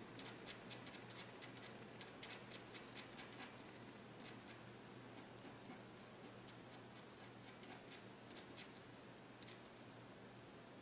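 Faint scratching of a Staedtler pigment liner fineliner on paper as fur is hatched in quick strokes: a rapid run of little ticks for the first few seconds, then sparser strokes with short pauses.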